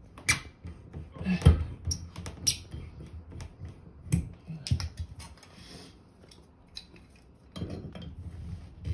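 Irregular metallic clicks, clinks and short scrapes of hand tools working on a radiator pipe end, with a pause in the middle, as a notch left by cutting off the old compression olive is cleaned up.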